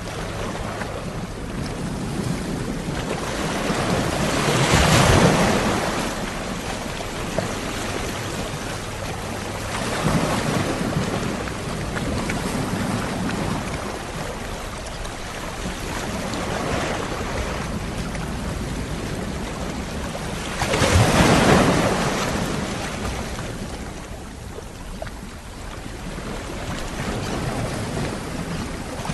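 Sea waves washing ashore: a big wave breaks about five seconds in and another about twenty-one seconds in, with smaller surges between, over a steady wash of surf.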